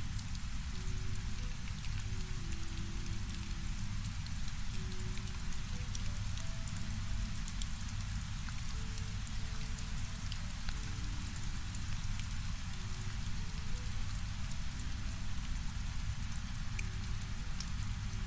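Steady rain with fine patter of drops, over a deep, even low rumble of brown noise. Faint soft held notes drift in and out in the middle range.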